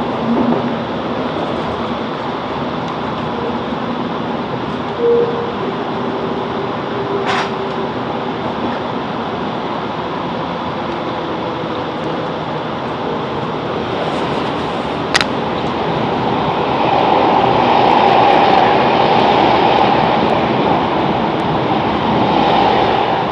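A Class 165 Networker Turbo diesel multiple unit running, heard from inside the carriage: a steady rumble of wheels and engine with faint shifting tones, two sharp clicks, and a few seconds of louder running noise near the end.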